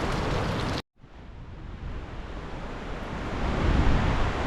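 Gale-force storm wind rushing through pine trees and buffeting the microphone with a heavy, steady rumble. The sound cuts out abruptly just before a second in, then the wind noise swells back up.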